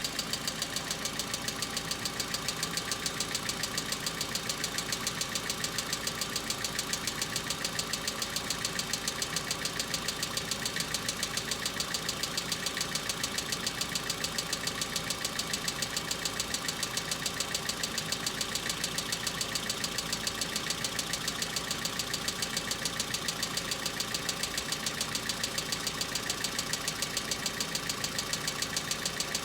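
Hyundai Accent engine idling on a cold start, with a fast, even ticking from the hydraulic valve lifters (lash adjusters) knocking while the engine is still cold.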